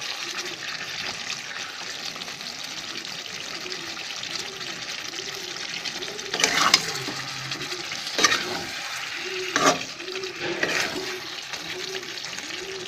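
Chicken curry sizzling in a kadai as a spatula stirs it. The steady hiss is broken by a few sharp scrapes of the spatula against the pan in the second half.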